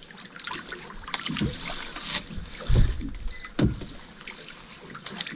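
Clicks, knocks and water sloshing at a small boat's side as a hooked hairtail is lifted from the water on rod and line, with a few dull thumps.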